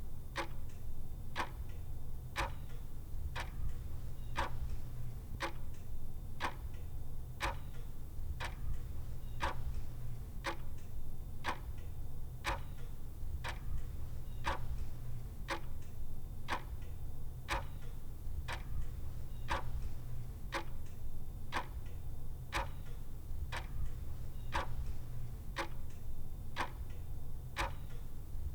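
Clock ticking steadily, about two ticks a second, alternating a stronger and a weaker tick, with a steady low hum underneath.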